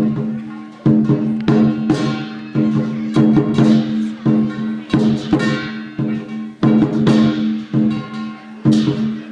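Music with heavy percussion: loud strikes come about every half second to a second, each with a bright crash that rings and fades, over a steady low held tone.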